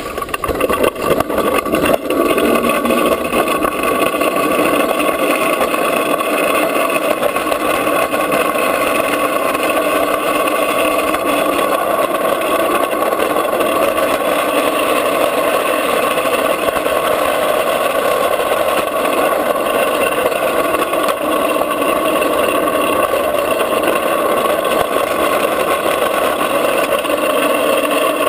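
Drift trike rolling fast downhill on asphalt: a steady, loud rolling roar of its wheels on the road surface, uneven for the first couple of seconds and then even.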